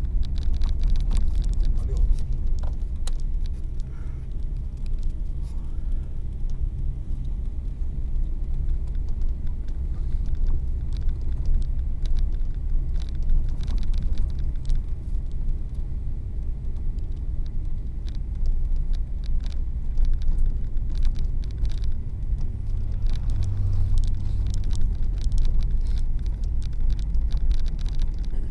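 Steady low engine and road rumble heard inside a moving vehicle's cabin on a snow-covered mountain road, with scattered faint clicks and ticks over it.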